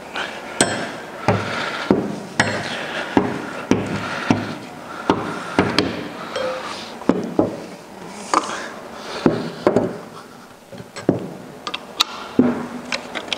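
Metal hand tools and fittings clinking and knocking against an automatic transmission case as its cooling line adapters are loosened with a wrench: irregular sharp clicks and knocks.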